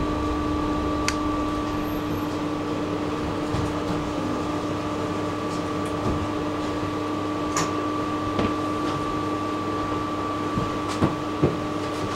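Steady electrical hum inside a tram, with two steady tones and little running rumble, broken by a few faint clicks and knocks, the most prominent about 11 seconds in.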